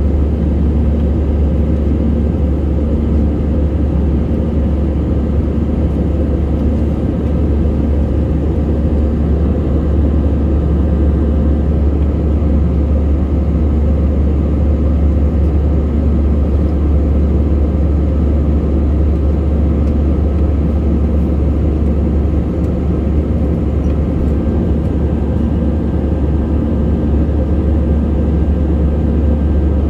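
Cabin noise of a jet airliner in flight: the engines and the airflow make a loud, steady, deep rumble with faint even hums above it.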